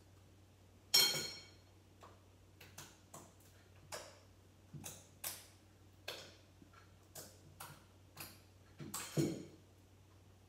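Irregular small clicks, taps and knocks of hands and slime being worked in a ceramic bowl. There is one ringing clink about a second in and a louder, duller knock near the end.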